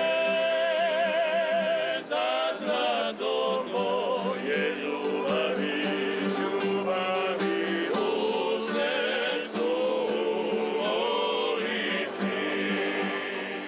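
A male vocal group singing a song in multi-part harmony, with vibrato on the held notes, accompanied by a strummed classical guitar.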